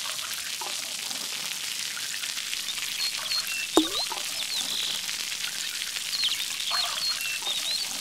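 Water trickling with a steady hiss, and a single drop plopping into water about four seconds in. Faint, short high chirps come and go near the middle and again toward the end.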